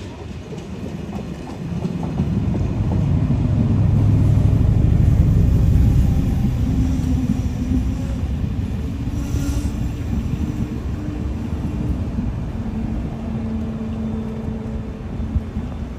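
Irish Rail intercity train running into the platform: a low rumble of the coaches rolling past that swells to its loudest about four to six seconds in as the leading cab goes by, then holds steady with faint steady tones over it.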